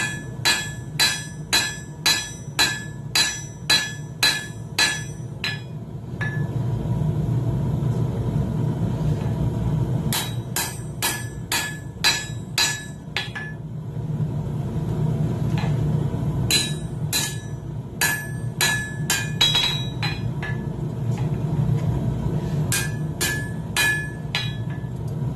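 Hand hammer striking hot steel tong jaws on an anvil in several runs of quick blows, about two a second, each with a bright ring, as the jaws of wolf jaw tongs are peened wider. A steady low rumble fills the pauses between the runs.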